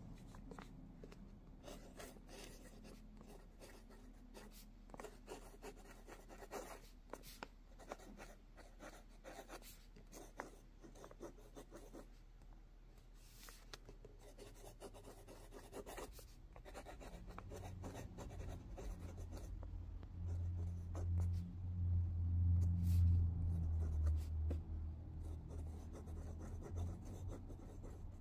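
Metal nib of a dip pen scratching across lined paper as cursive letters are written, in many short strokes with brief pauses. A low hum swells in the second half and is loudest about three quarters of the way through.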